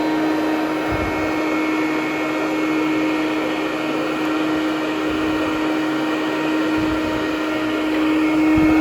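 Hoover Conquest Widetrack commercial upright vacuum, a direct-air machine, running steadily on low-pile carpet tile, its motor giving a constant whine over the rush of airflow. It gets a little louder near the end.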